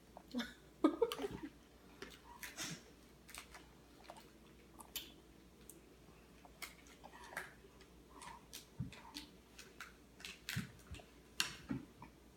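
A toddler chewing and crunching on Pocky biscuit sticks: faint, scattered small crunches and mouth clicks at irregular intervals.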